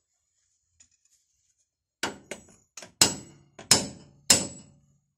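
A hammer striking steel leaf-spring mounting hardware on a Ford F-250, six sharp blows in about two and a half seconds, the last three the hardest, each with a short metallic ring.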